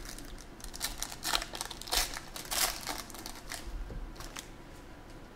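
Foil wrapper of a 2017 Panini XR football card pack crinkling as it is torn open by hand, in a run of sharp crackles that are loudest a couple of seconds in and die away near the end.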